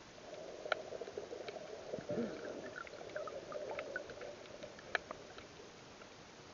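Muffled water sloshing and gurgling, heard underwater through an action camera's waterproof housing, with scattered sharp clicks; the sloshing fades about five seconds in.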